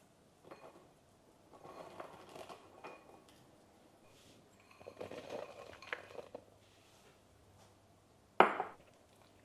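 Dishes and cutlery clinking and clattering in a few short spells, some with a brief glassy ring, and one sharp knock near the end that is the loudest sound.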